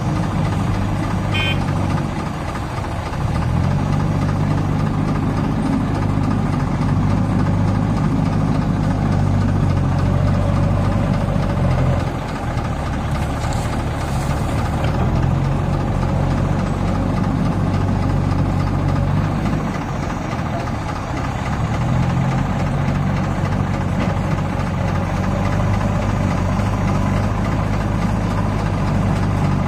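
HMT 6522 tractor's diesel engine running under load as it strains to pull a fully loaded trolley. Its note sags and picks up again three times.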